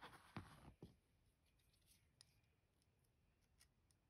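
Faint rustle of a hand on a fabric mat with two small sharp clicks in the first second, then a few faint ticks, as small watch parts and a spring bar tool are handled.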